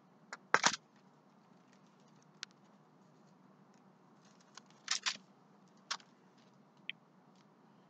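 Faint handling noise under a low hum: a handful of short, scattered clicks and rustles, with a small cluster about five seconds in.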